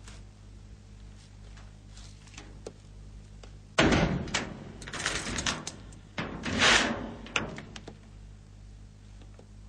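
A door sliding and clattering, loudest in two rough bursts about four and about seven seconds in, with scattered clicks around them. A low steady hum runs underneath.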